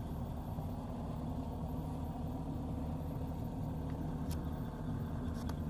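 Combine harvester's diesel engine running steadily, a low, even hum, with a couple of faint clicks.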